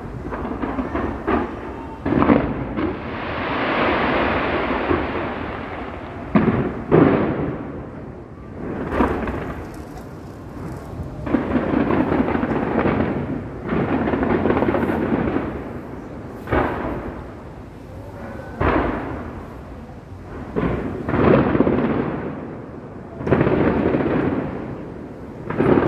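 Aerial fireworks exploding, a sharp bang about every two seconds. Each bang trails into a long swell of noise lasting a second or two.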